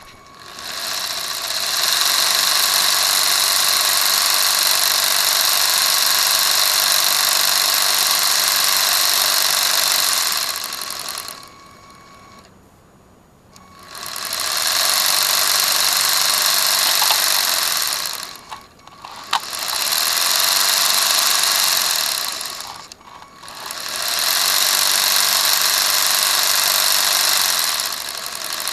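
Lego RC car's electric motor and plastic gear and chain drivetrain whirring at speed, switched on and off four times, with short pauses between the runs.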